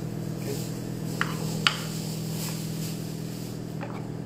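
Kitchen knife chopping dried cranberries on a small wooden cutting board: a few sharp taps of the blade on the wood, the loudest about a second and a half in. Under the taps runs a steady low hum.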